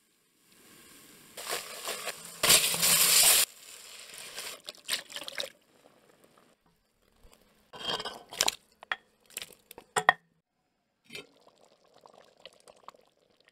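Chicken stock poured from a ladle into a hot enamelled pot of fried curry paste, with a loud hissing splash lasting about a second, two and a half seconds in. Then scattered clinks and scrapes of spoons against the pot as the sauce is stirred and spices added.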